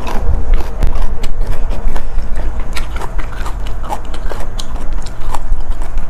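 Close-miked chewing of a spicy seafood salad, with many short wet mouth clicks and smacks.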